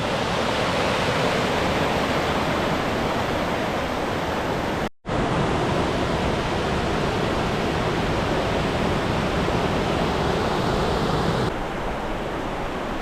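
Creek water rushing and splashing in a steady roar. The sound cuts out for an instant about five seconds in, and the level steps down slightly near the end.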